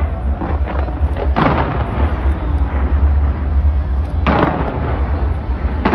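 Fireworks exploding: a steady low rumble with crackling, broken by two big booms that ring on, about a second and a half in and again just past four seconds.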